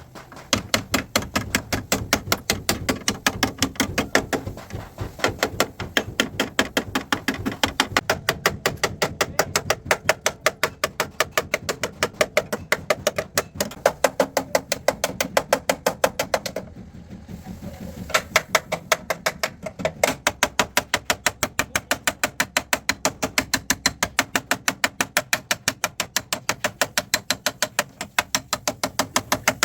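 Hand hammer striking sheet metal on a car body panel during dent repair, in a steady rhythm of about three or four blows a second, with a short pause about two-thirds of the way through.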